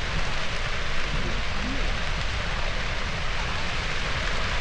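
Dry grass burning in a large controlled burn: a dense, steady crackling hiss of flames.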